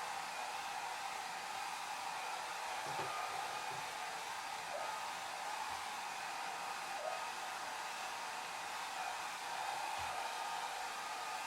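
Hair dryer running steadily: an even, airy hiss of blown air with almost no low rumble and a faint steady whine from the motor.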